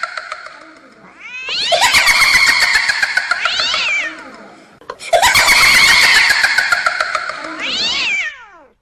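Horror-ringtone sound effect: a long wailing, cat-like yowl played twice in the same form. Each cry rises at the start, holds with a fast pulsing quiver, and ends in a swooping glide.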